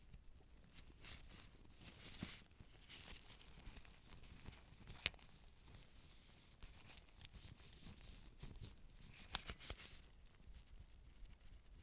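Faint rustling and crinkling of surgical supplies and instruments being handled, with a sharp click about five seconds in and a few more clicks near the end.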